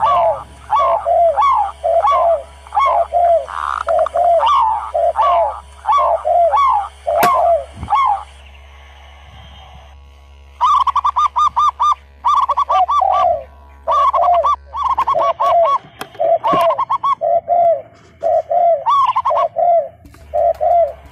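Doves cooing, one short rhythmic coo phrase after another, with a pause of about two seconds near the middle. A single sharp click about seven seconds in.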